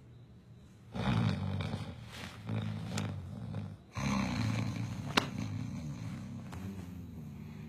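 A man snoring loudly: two long, rattling snores, the first starting about a second in and the second about four seconds in, each lasting around three seconds. Two short sharp clicks come during the snores.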